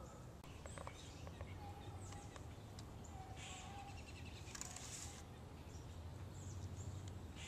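Quiet outdoor ambience with a faint steady low rumble and two brief rustles, about three and a half and five seconds in, as a climber brushes against tree bark and branches.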